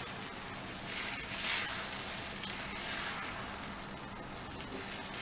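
Cucumber thalipeeth batter and the water on the cook's hand sizzling on a hot tawa as the hand pats and spreads the batter thin. The hiss is steady, swelling louder twice, about a second and a half in and again about three seconds in.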